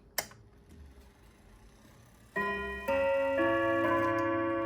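A click as the clock's chime mechanism is tripped by hand, then about two seconds later its chime rods start a melody: three notes struck about half a second apart, each ringing on.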